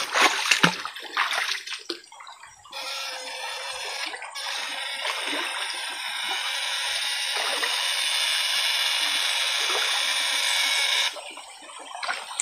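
Water splashing for the first two seconds as someone wades through a shallow stream. Then a steady fizzing hiss from the electric fishing probe held in the water starts abruptly and cuts off suddenly near the end, as when the shocker is switched on and off.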